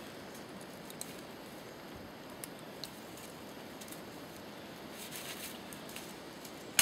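Light handling noise at a tree trunk: scattered small clicks and a brief rustle, then one sharp click at the very end.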